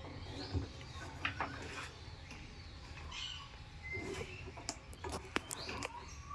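Parrots chirping and calling in short scattered calls, with a few sharp clicks, over a low steady background hum.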